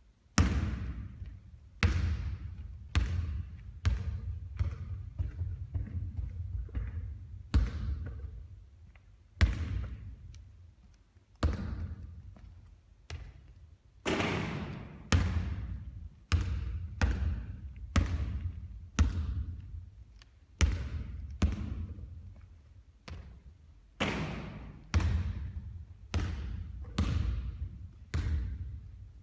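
A basketball bouncing and banging again and again during three-point shooting practice: sharp thuds every second or so, some close together, each with a short ringing decay.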